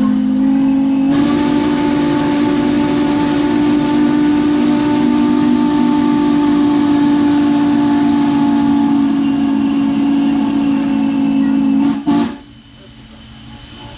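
Norfolk & Western 611's steam whistle blown in one long, steady chord of about twelve seconds for a ghost whistle, with a rush of steam hiss joining about a second in, then cutting off sharply.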